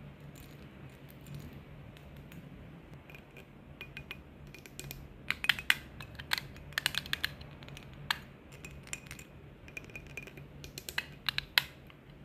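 Long fingernails tapping and clicking on perfume bottles and their caps in quick irregular flurries, busiest in the middle and again near the end, some taps leaving a brief ring.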